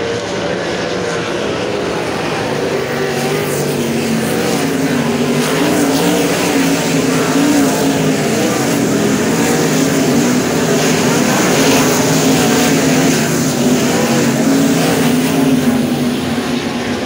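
A pack of 410 winged sprint cars' V8 engines running around the dirt oval, with wavering pitch as the cars go through the turns. The sound grows louder over the first several seconds as the field comes by, then holds.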